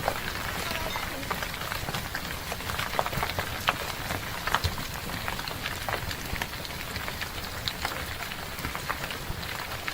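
Rockfall in a mountain couloir: stones clattering and striking rock in many irregular sharp cracks over a steady rushing noise.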